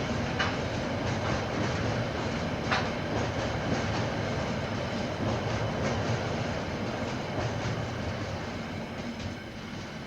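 KiwiRail train rolling past, wheels clicking over the rail joints, gradually fading near the end.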